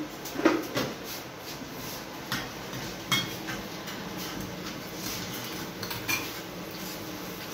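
Steel dishes and utensils being handled, clinking and knocking against each other and against a plastic container: a few separate knocks, two of them leaving a brief metallic ring.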